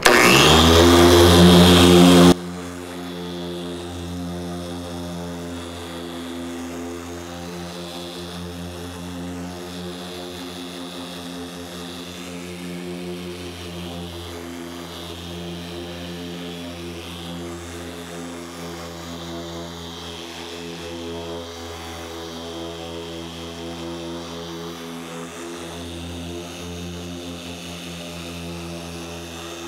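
Electric dual-action polisher running at a high speed setting with an orange compounding pad on car paint, cutting the oxidised finish with compound. It is much louder for the first two seconds or so, then settles into a steady motor hum.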